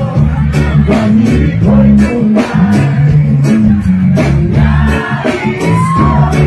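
Live reggae band playing: a man singing over a steady bass line, drums and guitar.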